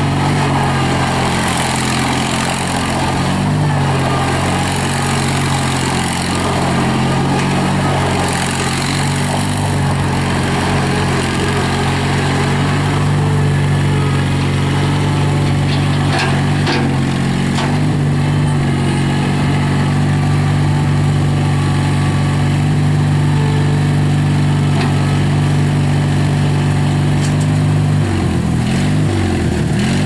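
New Holland L250 mini skid steer's 18 hp Onan Performer twin-cylinder gas engine running steadily under throttle as the loader drives and works its bucket. There are a couple of sharp knocks about halfway through, and near the end the engine speed dips and comes back up.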